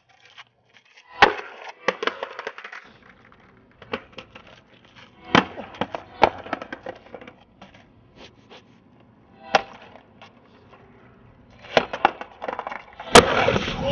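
Skateboard on asphalt: sharp wooden cracks and slaps of the deck and wheels hitting the ground, spaced a few seconds apart, with a faint rolling hiss between them. The loudest crack comes near the end.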